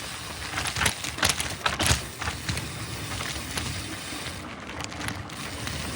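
Mountain bike riding over a rough trail: steady tyre noise with irregular knocks and rattles, thickest in the first two seconds.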